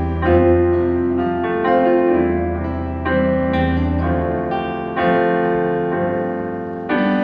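Instrumental break in a slow ballad: sustained piano chords struck about once a second, each ringing out and fading, over a held bass line.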